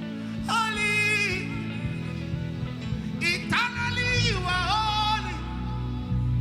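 Gospel song at a sound check: a solo voice sings two long phrases with a wavering vibrato, about half a second in and again midway, over a steady band accompaniment.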